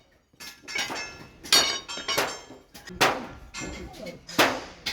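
Blacksmith's hammer striking steel on an anvil in a series of about seven blows, a little under two a second, each with a short metallic ring.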